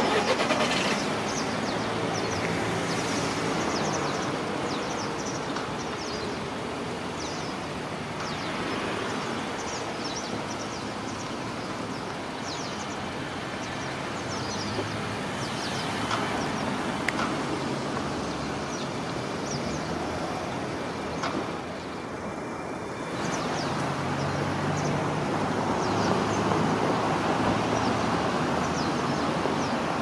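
Steady road traffic noise with a flock of white wagtails (Motacilla alba lugens) calling, many short, high calls scattered through, as the birds settle into their communal roost. The traffic gets louder in the last few seconds.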